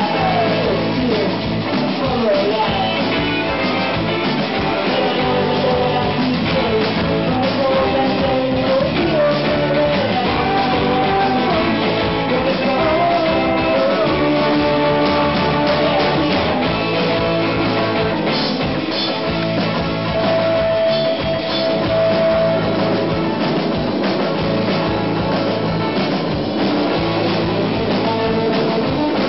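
Live rock band playing loud: two electric guitars, electric bass and a drum kit, with a voice singing over them.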